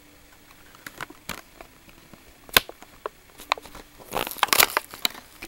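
Plastic blister of a Hot Wheels carded die-cast car being pried and peeled off its cardboard backing: scattered crackles and clicks, a sharp snap about two and a half seconds in, and a dense burst of crackling near the end.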